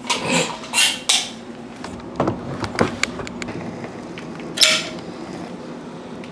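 Caulking gun being worked along a baseboard joint: several sharp clicks from the trigger and plunger, and short rustling noises, the loudest about four and a half seconds in.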